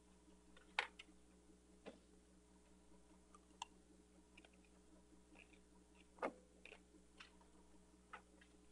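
Near silence: room tone with a steady low hum, broken by scattered faint clicks and taps, the most distinct about a second in and again past six seconds.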